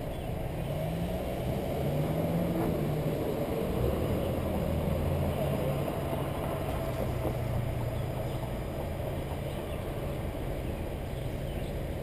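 Car engine and road noise at low speed, the engine note rising for a couple of seconds early on as the car pulls forward, then easing back to a steady low running sound.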